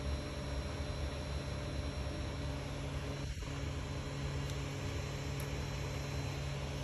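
3D printer's cooling fans running steadily: an even whirring hiss with a low hum.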